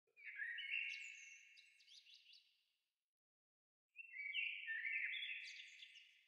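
Birdsong: two phrases of high, chirping notes, each a couple of seconds long, the second starting about four seconds in, with complete silence between them.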